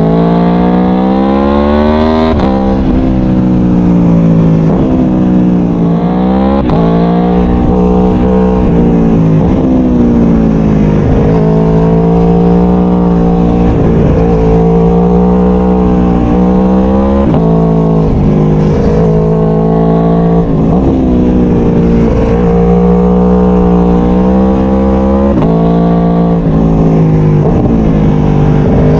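Aprilia Tuono V4 1100's V4 engine under hard riding, heard from on board. Its pitch climbs steeply and drops suddenly at each gear change, rising and falling many times as the bike accelerates and slows.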